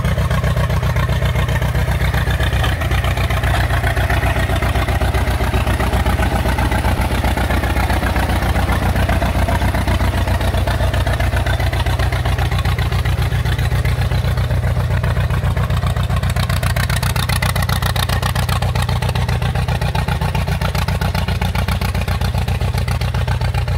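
Engine of a vintage steel-wheeled Farmall tractor running steadily as it is driven, with a rapid, even exhaust beat.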